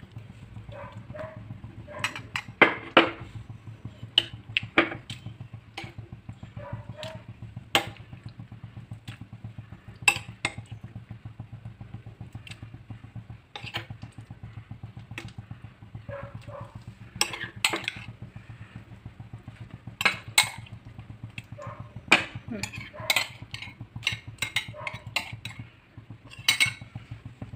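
Spatula stirring milk and cooked rice for pal payasam in a non-stick pan, knocking and clinking against the pan many times at irregular intervals, over a steady low hum.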